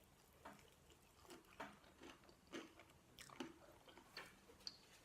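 Faint close-up chewing of food, with soft wet mouth clicks about every half second.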